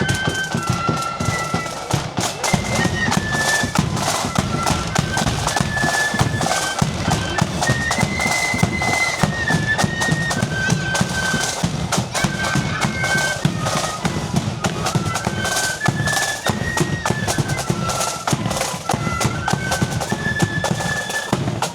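Marching flute band playing a high, stepping melody over a steady beat of bass and side drums.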